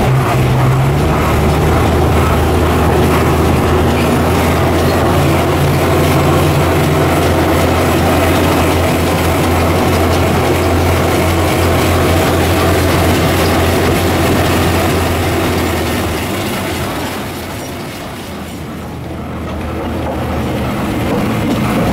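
Botchan Ressha, Iyotetsu's diesel-powered replica steam tram, running on street tram rails: a steady low engine drone with wheel and rail noise. It eases off about seventeen seconds in and builds again near the end.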